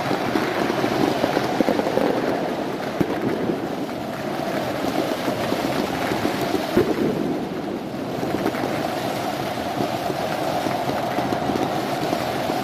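Fireworks and flares crackling densely over the steady noise of a large stadium crowd, with a few sharper bangs standing out.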